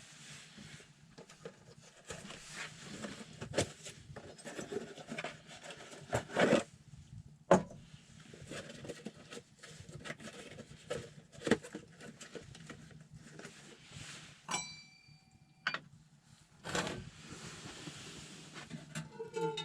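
Irregular knocks, taps and scrapes of hands-on work, with a short clear ringing tone lasting about a second near the end.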